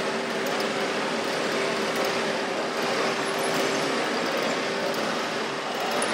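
Radio-controlled model construction machines running: a steady mechanical din of small motors and gears, with a constant mid-pitched hum that grows stronger after the first second or so.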